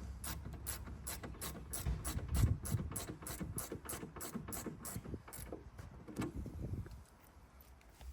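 Rapid, evenly spaced mechanical clicking, about five clicks a second, like a ratchet, stopping about five and a half seconds in.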